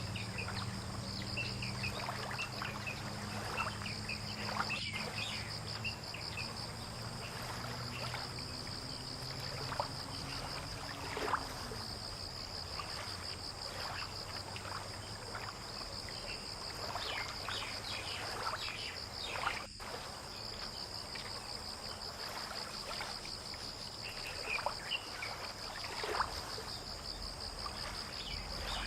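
Fishing-port ambience: a continuous pulsing insect trill with scattered bird chirps. A low motor hum, likely a boat engine, fades out about a third of the way through.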